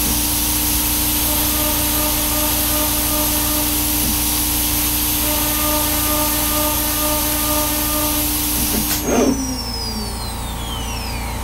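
CNC router spindle running at 18,000 rpm while thread milling aluminium, with a steady hiss from the coolant air nozzle. About nine seconds in the hiss and spindle tone cut off with a short knock, and the spindle winds down with a falling whine.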